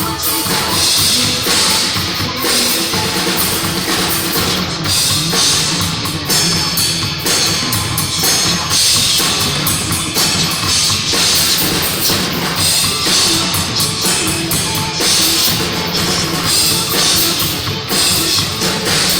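Rock music played loud and steady, with a full drum kit prominent.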